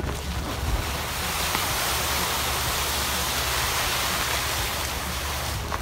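Leaf blower blasting air: a steady, rushing hiss with no break.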